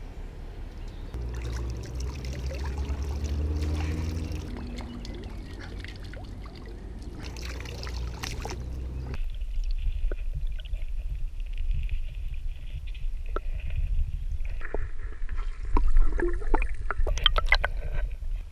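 Water splashing and sloshing against a kayak while a large catfish is handled at the side. About halfway through, the microphone goes under the water and the sound turns muffled: a low underwater rumble with clicks and knocks that grows louder near the end.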